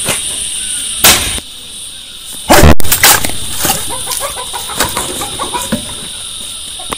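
An axe chopping into a log, with three heavy, sharp blows in the first three seconds, then lighter knocks. Chickens cluck through the second half, over a steady high hum.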